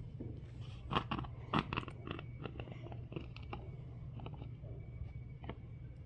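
Handling of a plastic oil bottle and funnel while filling a small engine with oil: a series of light crinkles, clicks and knocks, the loudest about a second and a second and a half in, over a steady low hum.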